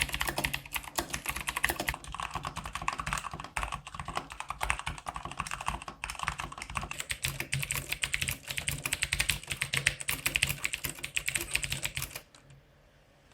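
Mechanical keyboard being typed on rapidly, a dense run of key clicks that stops about twelve seconds in.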